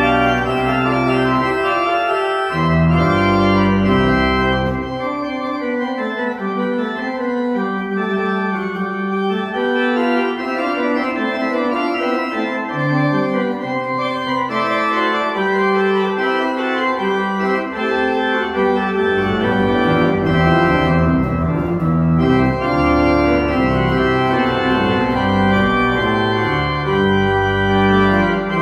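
Church organ playing a piece of sustained chords and moving lines. The deep pedal bass notes drop out about five seconds in and come back about two-thirds of the way through.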